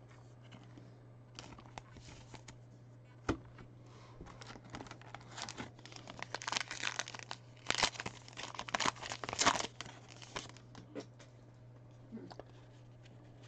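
A trading card pack wrapper being torn open and crinkled by hand, loudest in a run of crackling from about six to ten seconds in, with a few light clicks before it.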